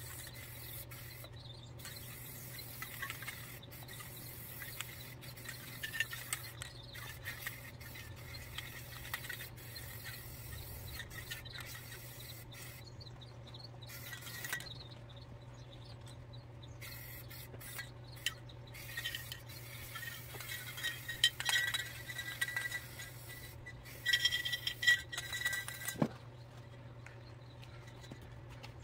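Aerosol spray paint can (Rust-Oleum Ultra Cover) spraying in short hissing bursts, then being shaken so its mixing ball rattles and clinks inside the can, loudest a few seconds before the end.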